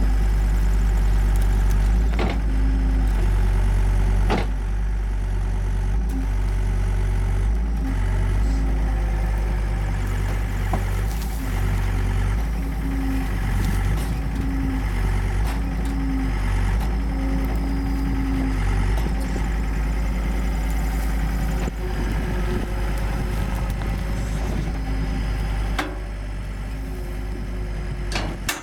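John Deere skid steer loader's diesel engine running under changing hydraulic load as it works a bale slicer. A mid-pitched tone cuts in and out in short spells, with a few sharp knocks near the start.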